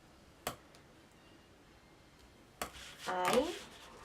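Paper being handled and pressed by hand: a single sharp tap about half a second in and a short paper rustle near the end, followed by a woman saying one word.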